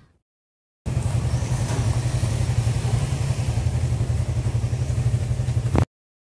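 Motorcycle engine running close by: a loud, steady low rumble that cuts in about a second in and cuts off abruptly near the end.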